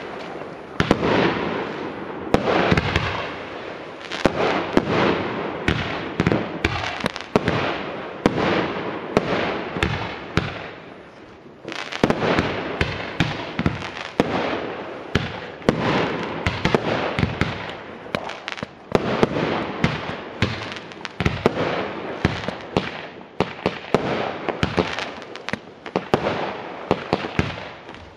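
Small-tube multi-shot firework cakes firing a rapid barrage: many sharp launch thumps and crackling bursts a second, overlapping almost without a break, with a short lull about eleven seconds in.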